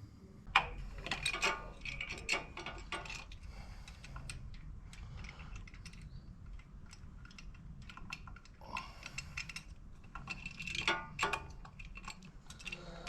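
Hand socket ratchet clicking in quick runs as the oil filter cover bolts are wound out of the engine, with a burst in the first few seconds and another near the end.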